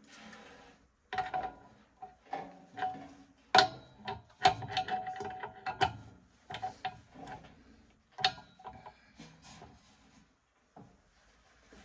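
Irregular clicks, knocks and metallic clinks of tools and metal parts being handled during repair work on a gas furnace, some strikes ringing briefly.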